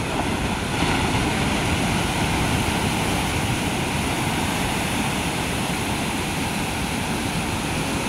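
Ocean surf washing onto the beach: a steady, unbroken rush of water noise.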